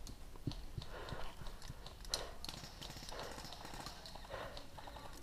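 Footsteps crunching through dry brush and undergrowth, about one step a second, with small snaps of twigs and leaves.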